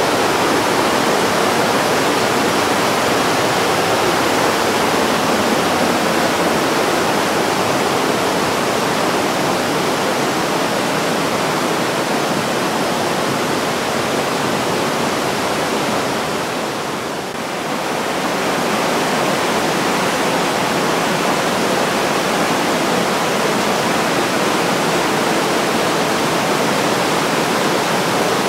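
Mountain river rapids, the Breitach rushing over boulders in a gorge: a steady, even rush of white water. It dips briefly about seventeen seconds in and then comes back.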